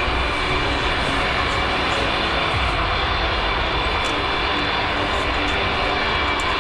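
Antonov An-225 Mriya's six turbofan engines at takeoff power as the aircraft lifts off and climbs: a steady, unbroken jet noise with a thin high whine.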